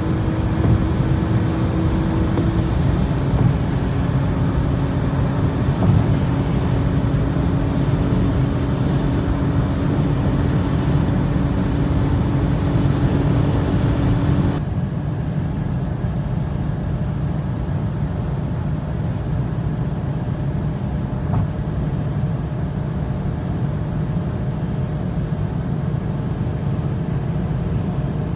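Seat Ibiza's 1.0-litre naturally aspirated three-cylinder engine held near 6,000 rpm in fifth gear at around 180–200 km/h, heard inside the cabin over a steady wash of wind and tyre noise. About halfway through, the sound turns abruptly duller.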